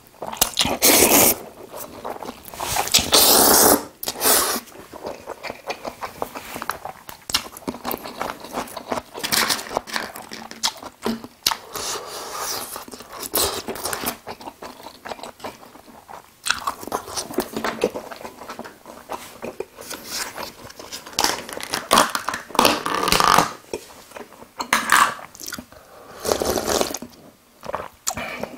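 Close-miked eating sounds. Two long slurps of jajangmyeon noodles come in the first few seconds, followed by irregular chewing and crunching bites of crispy fried tangsuyuk pork.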